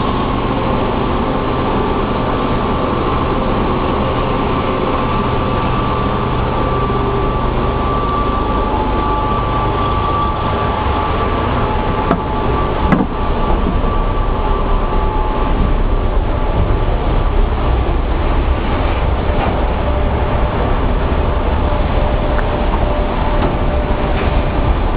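Pulp-mill machinery running: a loud, steady industrial din with a low hum and faint steady whines. A single knock about halfway through, after which the low rumble grows a little stronger.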